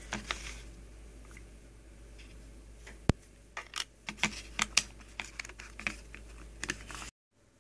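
Handling noise as a taped-up SIM card adapter is fitted into the plastic SIM slot of a Nokia 3110: faint rubbing, a sharp click about three seconds in, then a run of small clicks and taps. The sound cuts off abruptly near the end.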